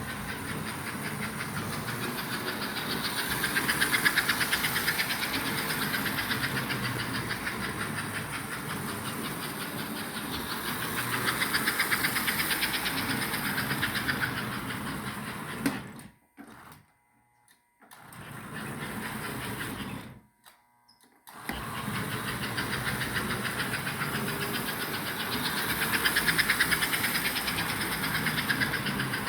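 American Flyer 302 Atlantic toy steam locomotive and freight cars running on track: an electric motor whirring with rapid clicking from the wheels and gearing. The sound swells and fades several times, and drops twice briefly to near silence a little past halfway.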